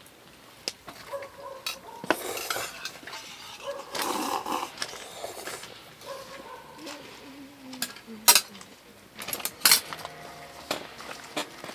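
Clinking and knocking of dishes and cutlery, a scatter of separate sharp clicks, with the loudest ones about eight and ten seconds in.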